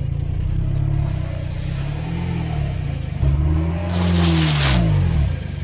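Car engine revving in reverse, its pitch rising and falling twice, with a burst of noise lasting about a second, around four seconds in, as the tyre crushes an object.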